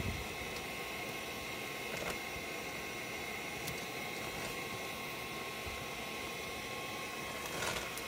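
A steady machine whir and hiss with a faint steady whine, as from a running fan; a few light clicks, and a brief rustle of handling near the end.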